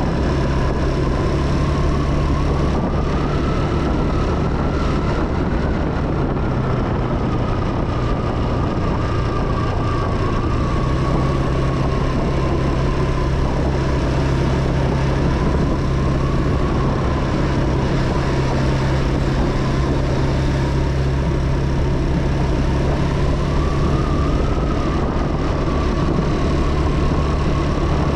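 Motorbike engine running steadily during a ride, with a high whine that rises and falls gently a few seconds in and again near the end.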